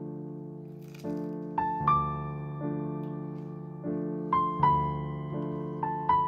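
Background piano music: slow, soft notes and chords, each struck and left to fade before the next.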